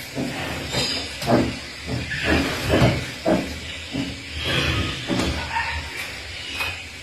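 Tigers calling: a run of short, breathy grunts and hisses in irregular bursts, about two a second at times.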